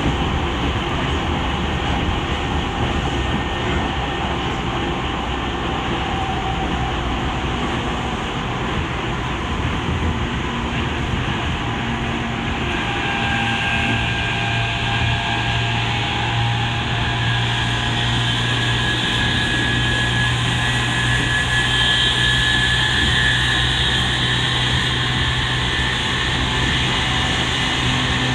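Running noise inside a Tokyu 5000-series electric train's motor car at speed: a steady rumble of wheels on rail. About halfway through, steady whining hum tones from the Hitachi IGBT-inverter-driven early-type TKM-98 traction motors come in, a car known for its loud motor noise.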